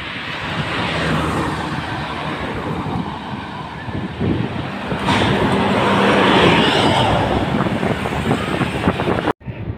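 Road traffic: a vehicle passing close by, engine and tyre noise swelling loudest about five seconds in. The sound breaks off abruptly near the end.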